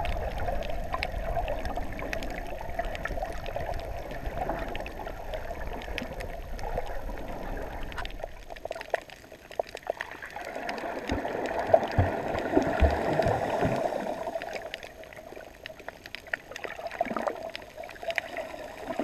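Water sloshing and gurgling around a camera held just below the sea surface, with many small sharp clicks scattered through it. The deep rumble drops away about halfway through and the sloshing swells again after that.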